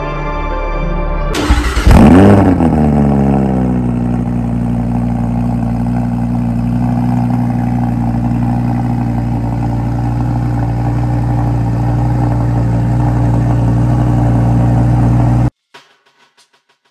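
Audi R8's 5.2-litre V10 starting up: it catches about a second in, flares loudly with a quick rev whose pitch falls away, then settles to a steady idle. The idle cuts off abruptly near the end.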